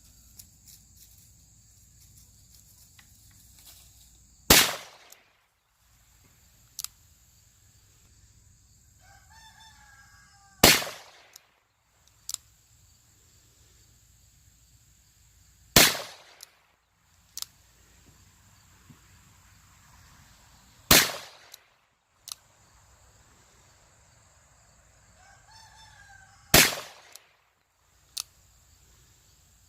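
Five shots from a Rock Island Armory M200 .38 Special revolver, fired roughly every five seconds, each followed about a second and a half later by a short faint click. A rooster crows twice between shots, over a steady high insect buzz.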